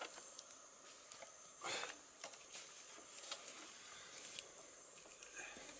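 Faint crackling of a wood fire with green bamboo tubes set in it: scattered small ticks and pops over a steady high hiss, with a brief rustle a little under two seconds in.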